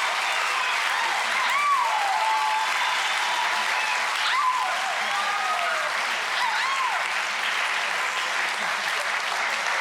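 Wedding guests applauding steadily, with cheers and a few whoops rising and falling over the clapping.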